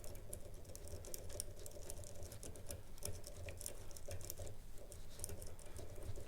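Bogota-tipped lock pick rocking and raking across the pins of a Euro cylinder lock: faint scratching with many small, irregular metallic clicks.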